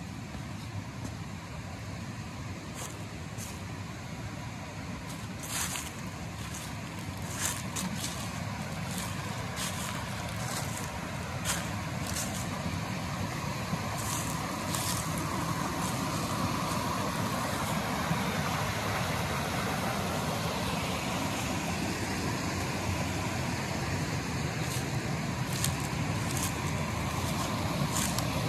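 Mountain creek rushing over small cascades, a steady rush of water that grows louder toward the end. Scattered short crackles of dry leaves underfoot, mostly in the first half.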